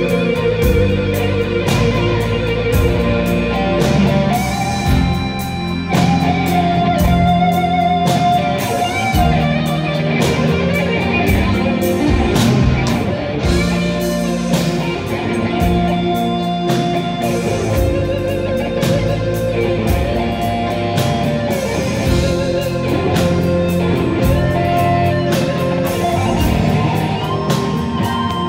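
Live rock band: an electric guitar plays a lead line of long, bending notes with vibrato, over bass guitar and a drum kit.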